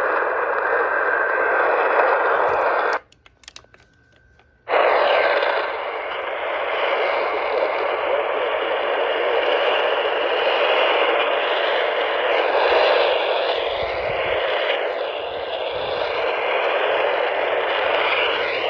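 AM car radio tuned to WHAS hissing with static as the station's signal is lost during an Emergency Alert System test, the test tones barely audible under it. The sound drops out almost completely for under two seconds about three seconds in, then the hiss returns.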